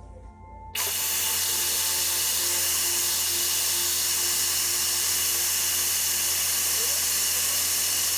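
Dyson Supersonic HD01 hair dryer switching on about a second in and running with a steady rush of air and a faint hum. It is running with its intake filter removed, as a test of whether the clogged filter makes it overheat and cut out.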